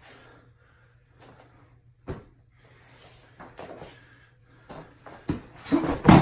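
Bare feet stepping and shuffling on a judo mat during a grip-and-throw, then a heavy thud near the end as a person is thrown down onto the mat.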